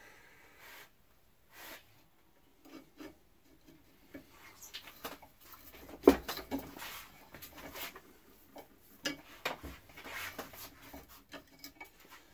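Hand tap cutting a thread into a metal bar, turned back and forth by two adjustable spanners gripping the tap: intermittent scraping of the tap in the metal with small metal clicks, and one sharp knock about six seconds in.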